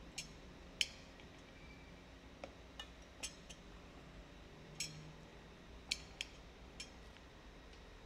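About ten light, irregular clinks of a metal fork and spoon against a ceramic bowl and a metal pot as rice is served, over a faint steady background hum.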